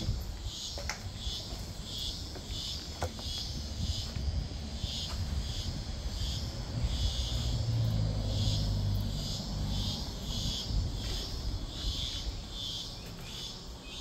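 Insects chirping in an even pulsing rhythm, about two pulses a second, over a low rumble on the microphone that is strongest about eight seconds in.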